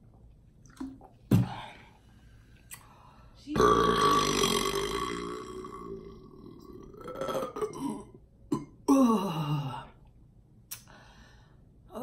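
A woman burps loudly after drinking ginger ale. The main burp starts about three and a half seconds in and lasts around three seconds, and a shorter sound falling in pitch follows about nine seconds in.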